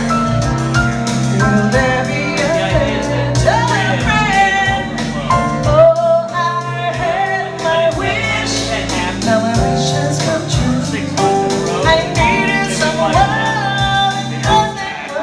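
A woman singing a slow song into a microphone, accompanied by piano.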